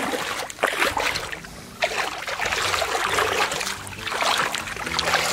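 Shallow water splashing and sloshing in several noisy surges, with a short lull a little over a second in, over a faint low steady hum.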